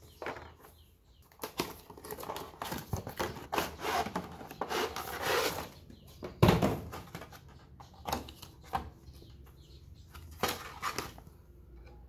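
Cardboard box and plastic packaging being handled and opened: rustling and sliding, scattered scrapes and clicks, and one louder thump about six and a half seconds in.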